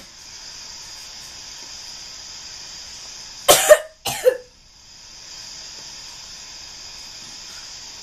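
A person coughing twice in quick succession about three and a half seconds in, a staged cough for a fake coughing-up-blood prank, over a steady faint hiss.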